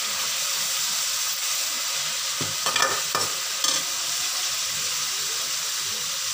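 Chicken pieces sizzling in hot oil in a metal karahi as they sear, the meat just starting to change colour. A few knocks and scrapes of a metal spoon stirring against the pan a little past the middle.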